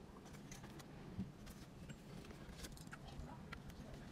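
Faint clicks and taps of hands handling an Android car stereo head unit and its ribbon cable, with a louder knock about a second in.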